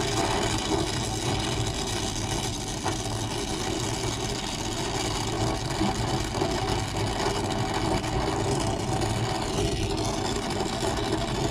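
Brazing torch flame burning with a steady hiss as the copper capillary tube is brazed to the evaporator coil.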